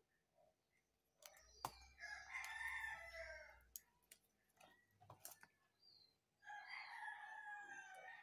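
A rooster crowing twice, each crow lasting a second or two, with a few light clicks between.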